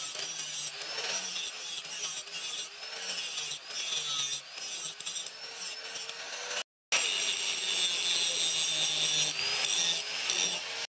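Angle grinder with a sanding disc grinding the edge of a steel axe head cut from a plough disc. Its whine wavers up and down as the disc is pressed on and eased off. It breaks off for a moment about two-thirds of the way through, runs louder afterwards, and cuts off abruptly near the end.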